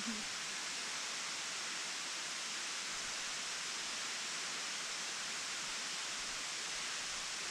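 Waterfall rushing steadily: an even hiss of falling water with little low rumble.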